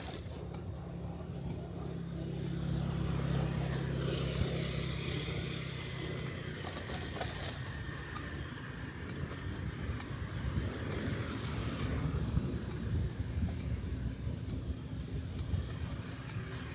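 A motor vehicle's engine hum swelling and fading as it passes over the first several seconds. It is followed by a rougher low rumble of road and outdoor noise.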